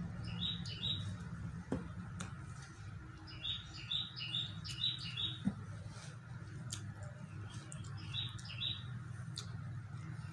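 A small bird chirping in short runs of quick, high notes, three times: about half a second in, again for a longer run around three to five seconds in, and briefly around eight seconds in. Beneath it runs a low steady hum, with a few faint clicks.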